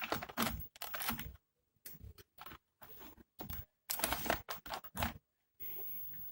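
Multimeter test probes clicking and tapping against transistor leads in irregular small clusters, as the transistors are checked on the 1 kΩ resistance range.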